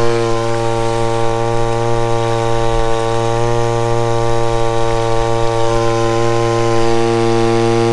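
Mitsubishi TL20 two-stroke engine driving a 1-inch water pump, running steadily with an even, unchanging drone.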